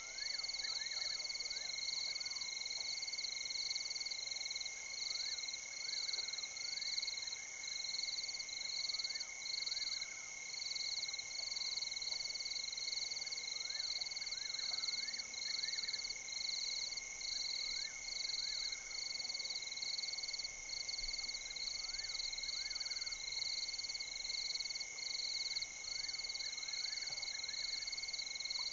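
Chorus of frogs and insects calling: a continuous high ringing trill, a higher call pulsing evenly about one and a half times a second, and scattered short chirps.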